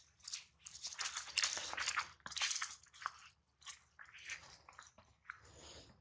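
Dry fallen leaves crunching and crackling underfoot in a run of irregular crunches, busiest in the first half and thinning out toward the end.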